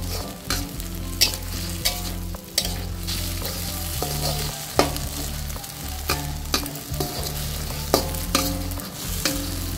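Eggs sizzling in hot oil in a metal wok while a metal spatula scrapes and taps the pan, breaking them into coarse scrambled curds. The steady sizzle is punctuated by sharp spatula clicks at irregular intervals, roughly once a second.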